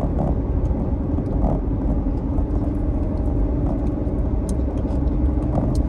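Steady low rumble and hum of a car's running engine, heard inside the cabin, with a few faint clicks.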